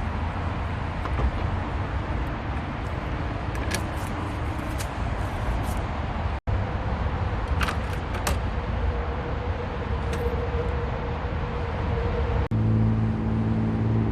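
Steady low outdoor rumble like road traffic, with scattered light clicks and taps from work on a headlight. The sound cuts out briefly twice, and a steady hum with several pitches starts near the end.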